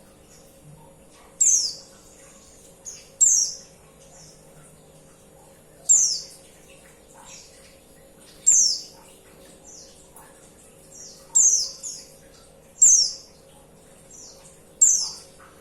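Female white-eye (pleci) calling: short, high, downward-sweeping chirps, seven of them at uneven intervals of a second and a half to two and a half seconds. A faint steady hum lies underneath.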